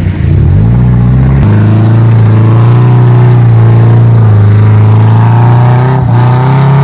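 Off-road vehicle engine running hard under throttle, loud and steady; it settles to a new steady pitch about one and a half seconds in and briefly drops off about six seconds in before picking up again.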